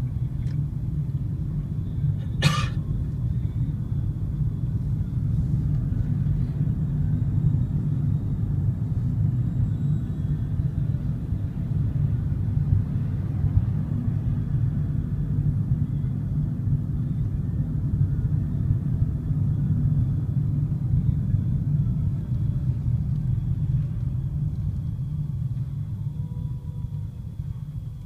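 Steady low engine and tyre rumble inside a moving car's cabin, with one short sharp click about two and a half seconds in; the rumble grows quieter near the end as the car slows in traffic.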